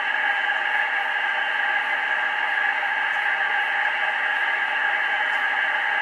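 Amateur radio receiver's speaker hissing with steady band noise and static, no voice or signal standing out above it.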